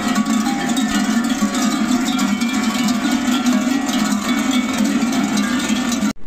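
Dozens of large waist-hung bells worn by marching bell-wearers (kodonoforoi), clanging together continuously in a dense, loud jangle with each stride. It cuts off abruptly near the end.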